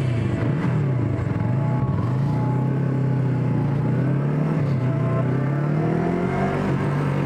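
Yamaha MT-03's parallel-twin engine running under a rider at town speed, its pitch dipping and rising several times as the throttle opens and closes, then climbing slowly before dropping near the end.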